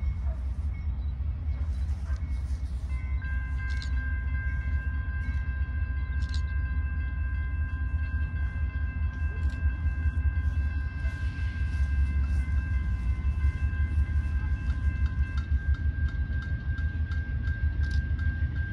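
A train approaching in the distance: a steady low rumble. From about three seconds in, a chord of several steady high tones joins it; most of them stop about fifteen seconds in, while one tone holds on.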